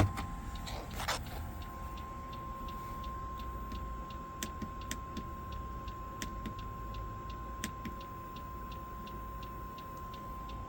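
Diesel bunk heater's fuel dosing pump clicking steadily a few times a second as it tries to prime. A few louder clicks stand out, over a steady tone and a low hum from the running heater.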